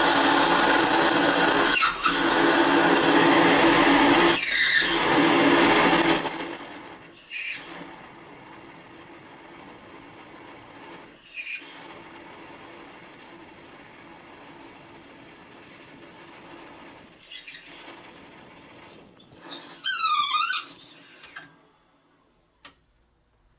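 Serdi 100 valve-guide machine drilling out an intake valve guide bore in a Mopar 318 cylinder head to take a new guide: the spindle cuts with a steady hum for the first few seconds, then a high-pitched squeal from the cutting takes over, breaking off several times and ending in a quick run of wavering squeaks. It stops about 21 seconds in.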